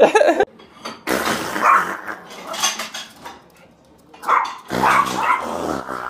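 A dog barking in rough, noisy bursts, with a sharp loud sound at the very start.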